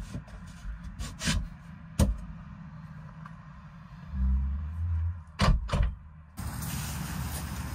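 Wooden boards and a door panel being fitted into a chicken coop's doorway: a series of wood-on-wood knocks, a sharp one about two seconds in and two more close together around five and a half seconds, with a low rumble just before them. Near the end the sound changes abruptly to a steady outdoor background noise.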